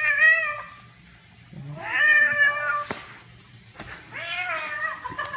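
A cat meowing: three drawn-out meows about two seconds apart, each rising and then falling in pitch.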